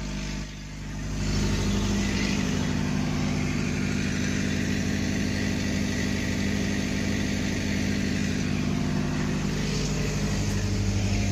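Diesel engine of a CFM D1M diesel multiple unit running steadily at a standstill, a low hum with a hiss over it that swells up about a second in.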